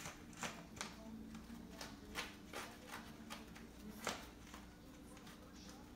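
Faint, irregular scratching and tapping of a bulldog puppy's and a cat's paws and claws on an artificial-grass pad and wooden floor as they play, with a sharper tap about two seconds in and another just after four seconds.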